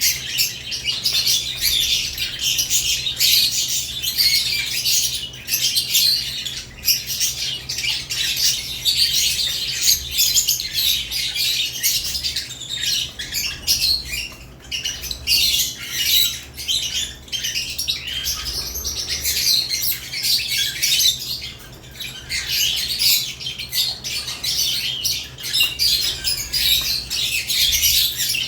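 A flock of caged lovebirds chattering nonstop, a dense stream of rapid high-pitched chirps and squawks overlapping one another.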